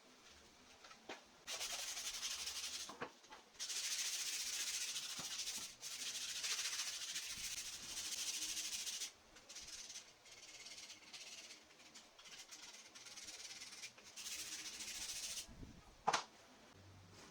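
Hand rubbing on wood, such as sanding, heard as several long hissing strokes of a second or more with pauses between, and a single sharp knock near the end.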